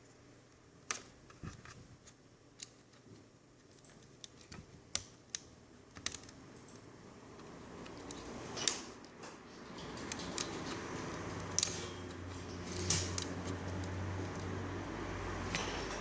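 Scattered sharp clicks and taps of small plastic laptop parts being handled, then a low hum and a rustling handling noise that grow louder through the second half.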